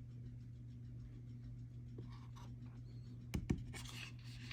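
Hands handling a boxed knife's packaging: faint scratching and rustling, with two sharp knocks close together about three and a half seconds in, over a steady low hum.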